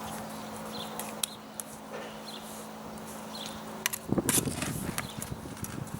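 Scattered knocks and scrapes of block-laying work, concrete blocks and a trowel being handled, with the loudest cluster of knocks about four seconds in, over a faint steady hum.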